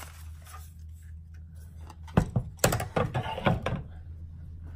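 A wire-mesh raffle basket being handled and moved: a sharp knock about two seconds in, then a quick run of clicks and rattles for about a second and a half, over a steady low hum.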